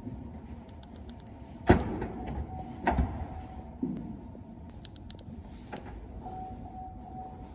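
Opel Astra K Sports Tourer's electric tailgate being worked: two sharp knocks a little over a second apart, then a softer one, with clicking and short warning beeps, and a longer beep near the end.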